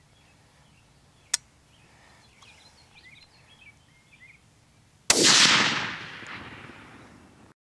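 A single rifle shot about five seconds in: a sharp crack followed by a long echo that fades over a couple of seconds. Before it, faint bird chirps.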